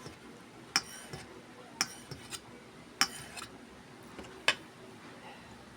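Eating utensils clinking against dishware during a meal: about five sharp, separate clinks spread over a few seconds.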